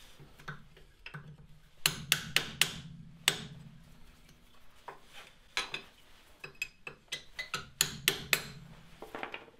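Sharp metallic clicks and taps in short irregular clusters: a flat chisel working the metal hub nut cover off the centre of a rear brake disc hub.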